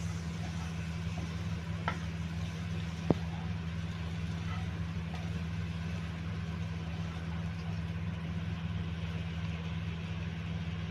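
A steady low hum, with a wooden spatula knocking against a nonstick frying pan twice, about two and three seconds in, as chicken fry is stirred; the second knock is sharp and the loudest sound.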